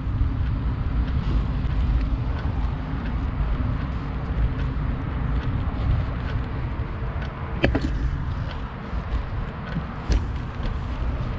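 Wind buffeting the microphone and road noise while riding a bicycle: a heavy, fluctuating low rumble, with a few sharp clicks or knocks, the clearest about two-thirds of the way through.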